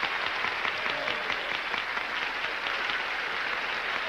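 Studio audience applauding steadily, dense clapping throughout.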